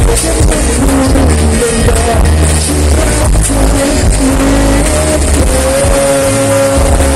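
Male singer singing live into a handheld microphone over a backing track with a heavy bass line, amplified through the stage PA speakers.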